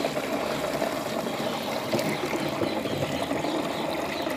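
Water pouring from a bucket into the plastic tank of a 16-litre battery knapsack sprayer, through the strainer mesh in its filler opening, a steady pour.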